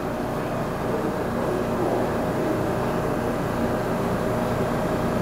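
R160B subway train (Siemens-equipped) standing at the platform with its doors open, giving off a steady hum with a thin, steady high tone running through it.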